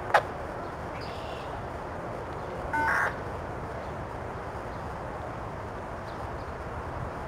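A freight train's autorack cars rolling past on the rails with a steady rumbling noise. A short, sharp falling chirp right at the start, and a crow caws once, loudly, about three seconds in.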